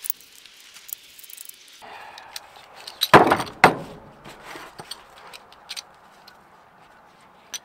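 Steel parts of a Porsche 944 Turbo CV joint clicking and clinking together as the ball bearings, cage and inner race are handled in the outer housing, with two heavier metal knocks a little past three seconds in.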